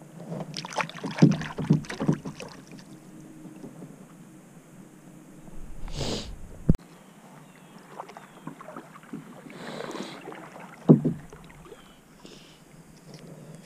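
Kayak paddle working in the water: the blade splashing and dripping, with several sharp knocks, the loudest about eleven seconds in.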